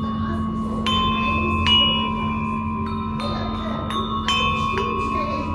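A row of small bronze bells, each tuned to a different pitch, struck one after another with a wooden-handled mallet. There are about six strikes, each sharp at the start and ringing on, so the tones overlap.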